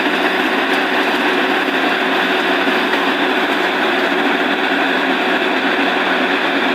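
Borewell drilling rig running steadily, a loud, constant machine noise with an unchanging low hum.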